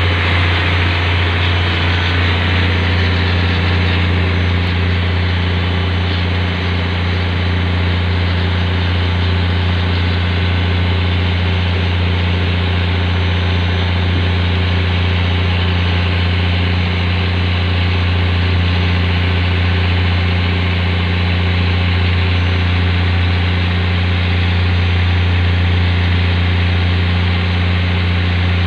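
Boat engine running steadily at sea, a constant deep drone that holds the same pitch throughout.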